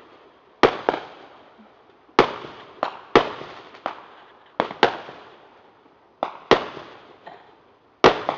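Aerial fireworks bursting overhead: about a dozen sharp bangs at irregular intervals, some in quick pairs, each trailing off in a long echo.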